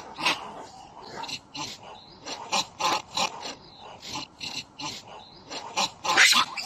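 Macaque screaming in a rapid run of short, harsh calls, about three a second, loudest near the end.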